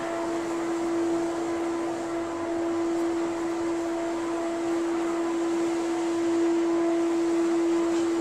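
A steady mechanical hum holding one constant mid pitch over a rushing hiss, unchanging throughout.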